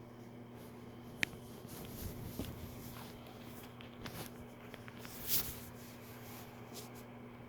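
Faint gurgling and rumbling from an upset stomach, over a steady low hum, with a sharp click a little after a second in and a brief rustle about five seconds in.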